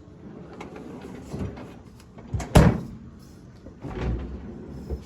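Plastic drawers and bins of a new GE French-door refrigerator being slid and handled, with a few knocks; the loudest is a sharp clack about two and a half seconds in, and another thud comes about a second and a half later.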